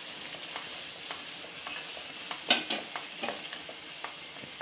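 Chopped onions, tomatoes, green chillies and coriander sizzling in oil and butter in a nonstick pan as they are stirred with a wooden spatula. There are scattered scrapes and knocks of the spatula against the pan, the loudest about two and a half seconds in.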